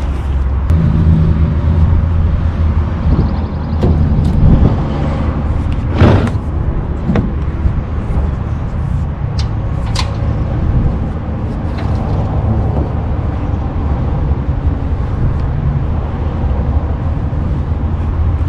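A steady low rumble like an engine running nearby, with a few sharp knocks about six and ten seconds in as hoses and tools are handled on a metal deck.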